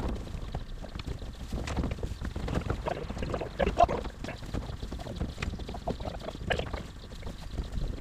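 Small square straw bales being handled on wooden wagon decks: irregular rustling and knocks of bales and boots on the boards, with wind noise on the microphone.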